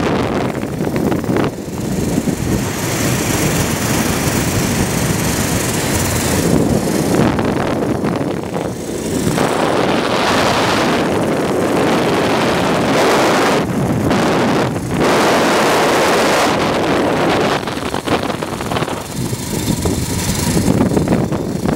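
Loud wind buffeting the microphone of a rider speeding along a zip line, surging and easing in gusts every few seconds.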